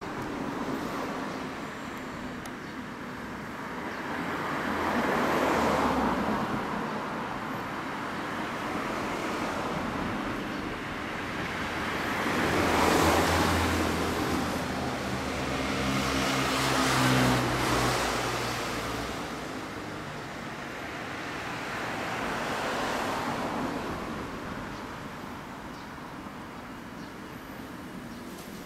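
Road traffic passing by: four vehicles go by one after another, each a rushing noise that swells and fades, the loudest two near the middle.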